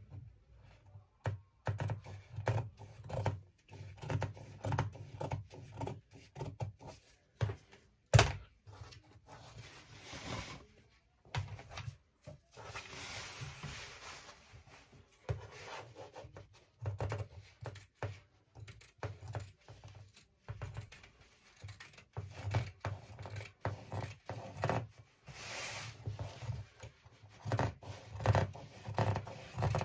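Scissors snipping through Ankara print cotton fabric in repeated, irregular cuts, with the fabric rustling as it is handled. A sharp knock about eight seconds in.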